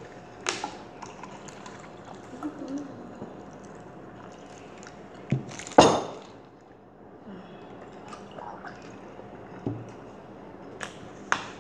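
Scattered clicks and knocks of drink cartons being handled at a table, the loudest a sharp knock about six seconds in, then a child sipping juice from a juice box through a straw near the end.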